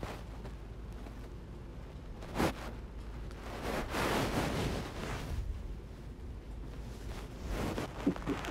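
Fabric and bedding rustling, swelling for a couple of seconds in the middle, with a single sharp knock about two and a half seconds in.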